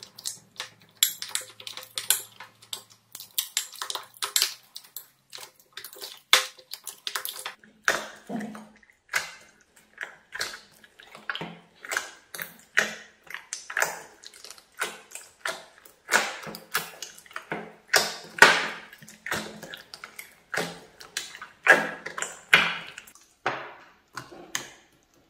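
Wet slime being stirred with a spatula, then squeezed and kneaded by hand in a glass bowl: a steady run of short wet squelches and sloshes, irregular and getting louder as the hand kneading takes over.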